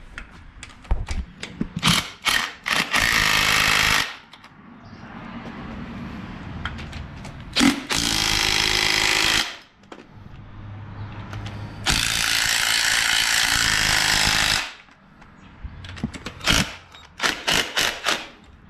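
Impact wrench driving the transmission-to-engine bolts home in three long bursts, with sharp metal clicks and knocks of the tool and bolts between them.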